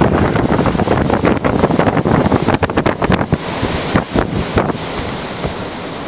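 Strong, gusty wind buffeting the microphone, heaviest for the first three seconds and easing somewhat after that.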